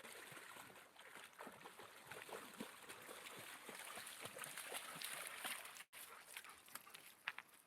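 Faint river water trickling and lapping, with small scattered splashes from a dog swimming. The sound drops out completely for an instant about six seconds in.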